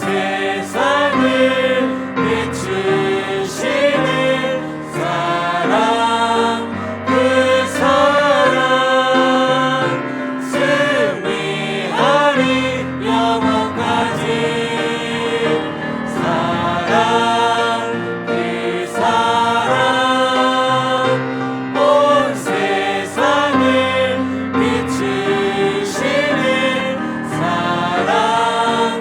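A church choir singing a hymn in several parts.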